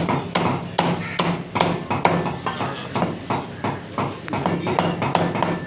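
Butcher's cleaver chopping mutton on a wooden chopping block, repeated sharp strokes at about two a second.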